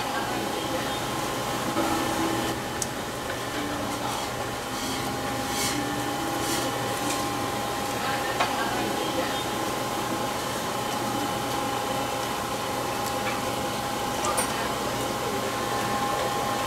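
A steady machine hum with a constant high whine, under a few sharp clicks as a cleaver slices through crispy roast duck on a chopping board.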